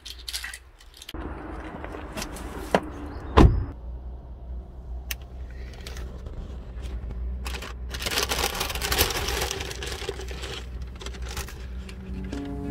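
Keys jangling as they are lifted off a wall hook, then a steady low car rumble with a sharp thump of a car door shutting about three and a half seconds in. Later a paper bakery bag rustles and crinkles for a few seconds.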